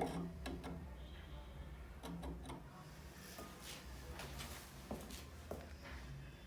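Scattered light knocks and clicks, with a sharper knock right at the start, over a faint steady low hum.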